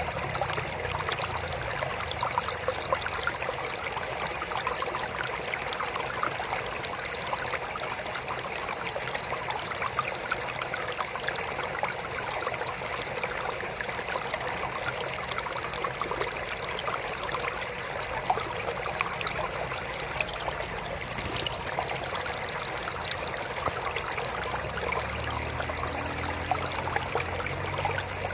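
Water trickling steadily in a small aquarium, a continuous splashing patter of small drops. A faint low hum comes in near the end.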